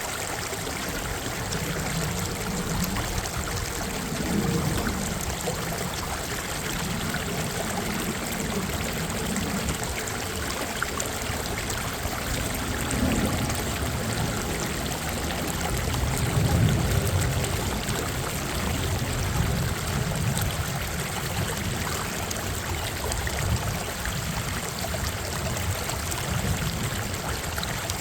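Minnehaha Creek's water rushing and splashing steadily, with slow low surges in the flow.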